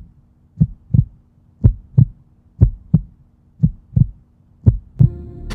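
Heartbeat sound effect: low double thumps (lub-dub) repeating about once a second, over a faint steady low hum.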